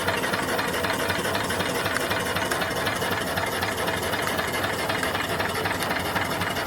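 Small home-built steam engine running steadily on its boiler, with a fast, even mechanical clatter.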